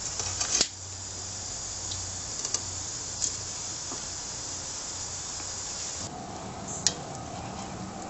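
Long-nozzle lighter flame hissing steadily inside a stainless bee smoker's fire chamber, lighting newspaper and wood-pellet fuel, with a few light metallic clinks. The hiss stops about six seconds in.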